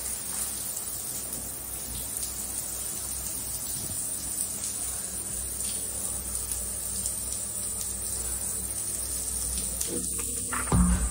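Shower water running with a steady hiss onto a tiled shower floor, and a short low thump near the end.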